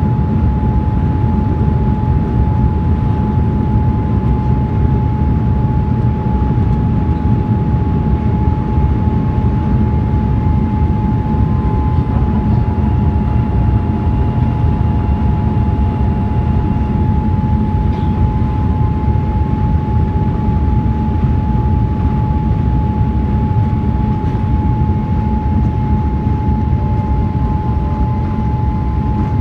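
Jet airliner cabin noise from a seat over the wing: a steady, loud rush of engines and airflow with a constant whine on top.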